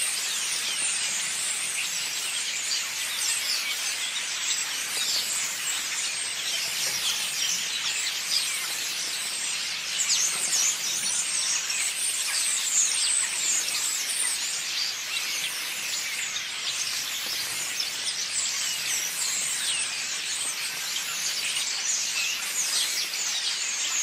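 A large flock of small birds hidden in a hedge, many chirping and chattering at once in a dense, unbroken twittering.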